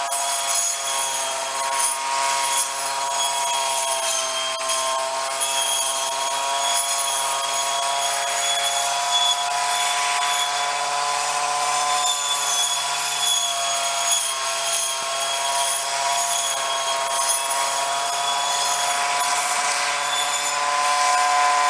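Two-stroke engine of a Snapper commercial weed eater, fitted with a circular saw blade, running steadily at high speed as it is used on wet grass.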